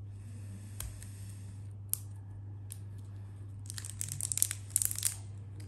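Plastic crinkling and rustling as a 3D printer's fan cable is pulled out through its black cable sleeve. There are a few light clicks early on, then a burst of crackling about four to five seconds in, over a steady low hum.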